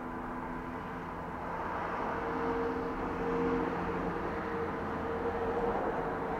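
A large road vehicle driving past: engine hum over tyre and traffic noise, growing louder about two seconds in.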